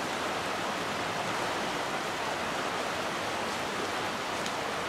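Steady rush of fast-moving creek water running over shallow rapids.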